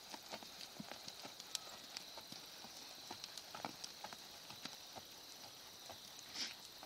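Hoofbeats of a ridden horse moving at an easy gait on sand arena footing: a faint, irregular run of soft knocks over a steady high-pitched hum, with a brief louder rasp near the end.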